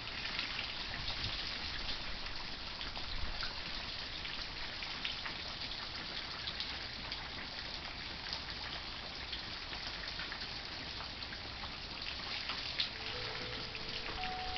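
Rain falling steadily, with many small drops pattering. Near the end, wind chimes begin to ring with a few sustained tones.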